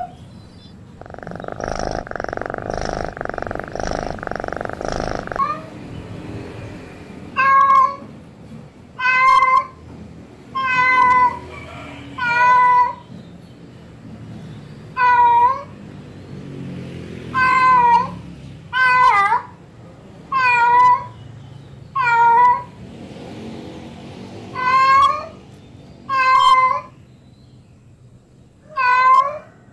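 Female domestic cat in heat yowling: about a dozen drawn-out, wavering calls, each about a second long, repeating every one to three seconds from about seven seconds in. Before them, a rough steady noise lasts about four seconds.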